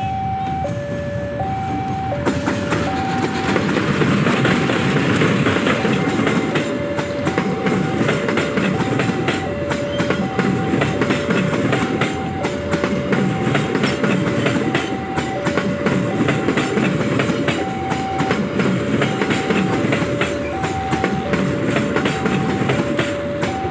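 A diesel-hauled passenger train passes close by: the locomotive's rumble, then the rolling noise and rapid wheel clicks of the coaches over the rail joints. Over it, a two-tone electronic warning signal alternates high and low at an even pace.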